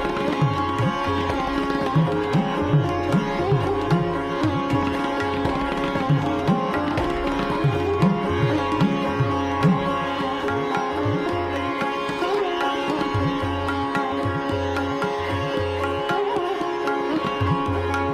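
Instrumental background music: a plucked string melody over a steady drone, with low hand-drum strokes that bend in pitch.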